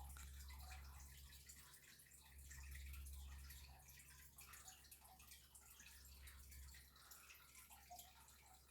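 Near silence: a low steady hum with faint, scattered small ticks.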